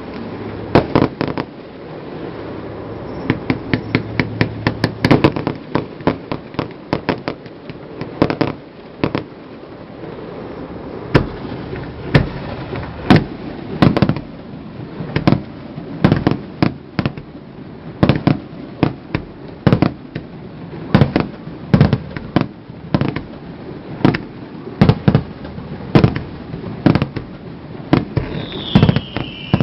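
Fireworks display: a steady run of sharp bangs from bursting shells, with a fast cluster of reports a few seconds in and a falling whistle near the end.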